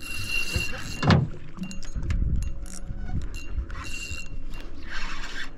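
Fishing reel being worked against a hooked fish, its whirring coming in bursts, with a sharp knock about a second in.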